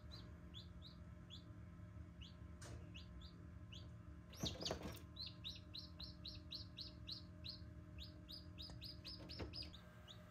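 Newly hatched chicken chicks peeping softly: short high falling peeps, scattered at first, then a quicker run of about three or four a second in the second half. A brief louder noise comes about halfway through.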